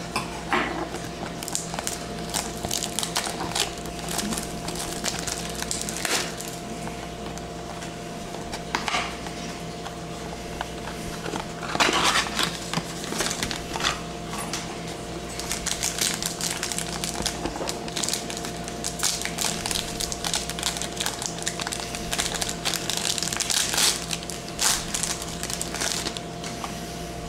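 A trading-card pack being torn open and its packaging crinkled and rustled by hand, in irregular sharp crackles, loudest about twelve seconds in and again towards the end, as the cards are pulled out and handled.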